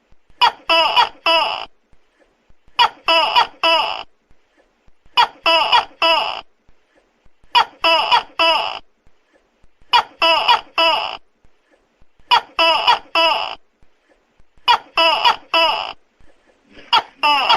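Tokay gecko calling: a group of three quick, sharp syllables, repeated evenly about every two and a half seconds, eight times in a row.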